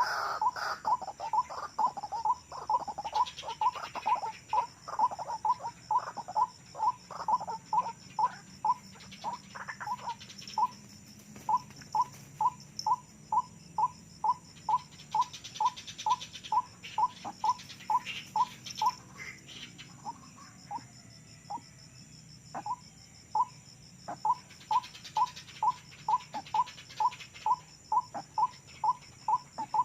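White-breasted waterhen (ruak-ruak) calling: one short note repeated monotonously at about three a second, with a brief thinning of the series about two-thirds of the way through. This is the bird's call as used to lure waterhens to a trap.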